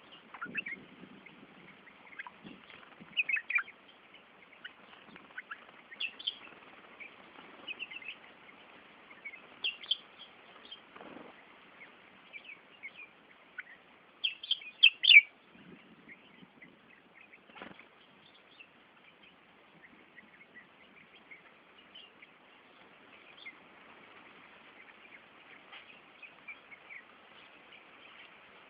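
Small birds chirping in many short, scattered high calls, busiest and loudest about halfway through, with a few brief low rustles of wings as they bathe.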